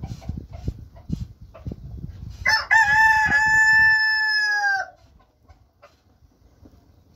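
Burning firewood crackles and pops under the grill. Then, about two and a half seconds in, a rooster crows once, loudly: one long call of about two seconds that rises at the start, holds, and drops away at the end.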